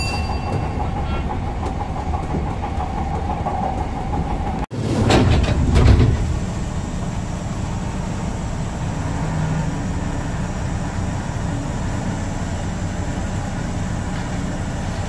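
Commuter electric train heard from inside the car: steady running rumble with a humming tone. The sound breaks off abruptly about five seconds in, then comes a loud low rush lasting about a second and a steady low rumble. A rising whine begins near the end.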